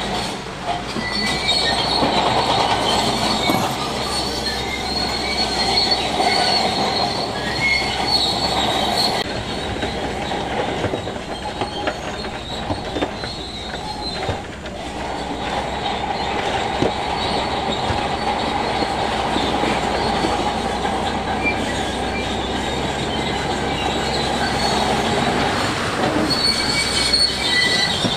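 Bulldozer's steel tracks squealing and clanking over the steady running of its diesel engine, with high-pitched squeals that waver throughout and ease off briefly midway.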